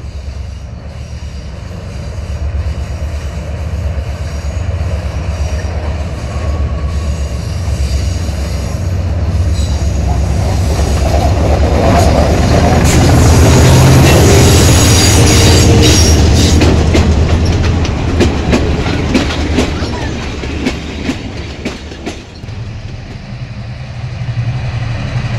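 M5c diesel locomotive hauling a mixed train out of a tunnel and past: the engine's low drone builds and is loudest about halfway through, then the wheels clatter over the rail joints as the carriages go by.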